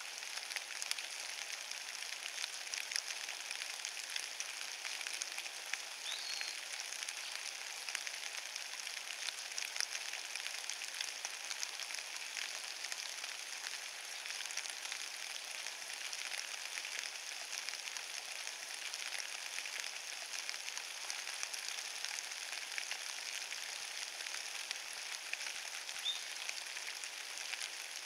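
Rain falling on wet fallen leaves: a steady, dense patter of many small drops ticking on the leaf litter.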